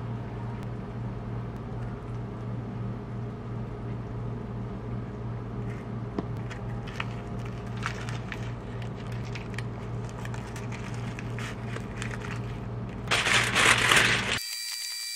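Kitchen handling sounds over a steady low hum: light clicks and crinkles as roasted seaweed is folded around the fillings, then a brief louder rustle of hands rubbing rice grains off about a second before the end. The sound cuts abruptly to a different steady hum with a faint high whine.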